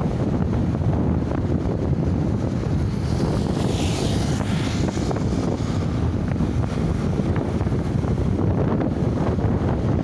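Wind buffeting the microphone of a moving motorcycle, a steady rumbling roar mixed with road and engine noise, with a brief rise of hiss about four seconds in.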